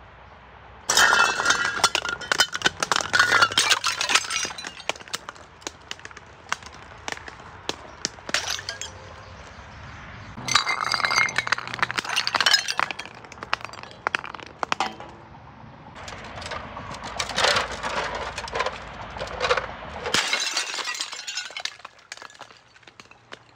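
Glass bottles breaking. There are three bursts of shattering glass and clinking shards, the first about a second in, the next about ten seconds in and the last about seventeen seconds in, with scattered tinkles of glass between them.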